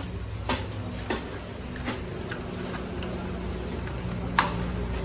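Light clicks and taps of a plastic cup and utensils being picked up: four sharp clicks spread out, the loudest near the end, over a steady low hum.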